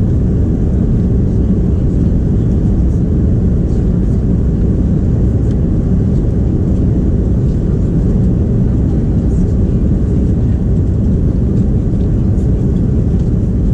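Steady low roar inside the cabin of an Airbus A330 climbing shortly after takeoff: engine and airflow noise, with no change in level.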